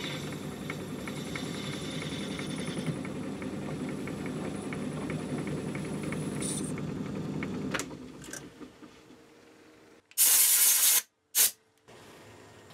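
Myford ML7 lathe running with a steady hum and a light regular ticking while a brass piston is parted off, then switched off and running down about eight seconds in. Near the end come two loud rasping bursts, the first about a second long, the second brief.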